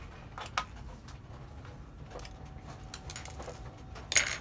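Plastic clips of an Acer Chromebook's bottom cover clicking as they are pried loose with a pry tool. A few light clicks are followed by one loud sharp snap just before the end.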